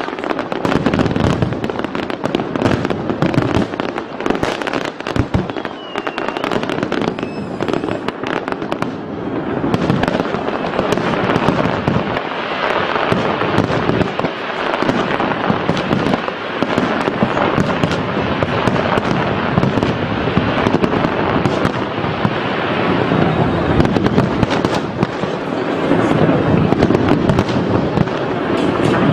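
Fireworks display: aerial shells bursting and crackling in rapid, unbroken succession.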